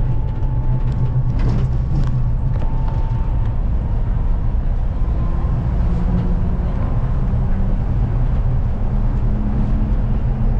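Kanazawa Seaside Line rubber-tyred automated guideway train running: a steady low rumble with faint whining tones over it.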